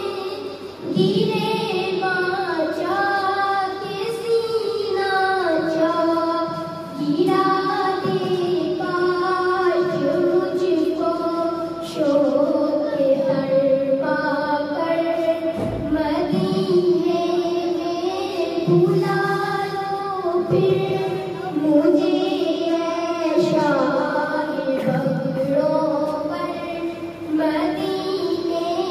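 A girl singing a naat, an Urdu devotional poem, solo into a microphone, with long held notes that waver and glide in pitch, broken by short pauses for breath.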